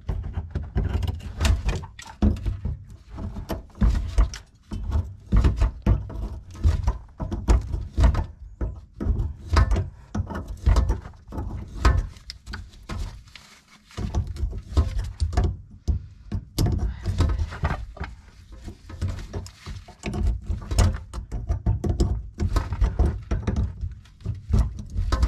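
Irregular knocks, clunks and handling noise from tools and metal parts while a mixer tap is being taken apart. There is a quieter pause about halfway through.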